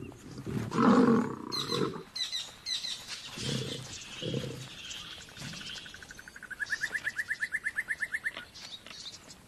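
Male lions snarling and growling at each other in a scuffle, loudest over the first two seconds, then two shorter growls. From about halfway, a bird gives a rapid trill that rises in pitch for about three seconds.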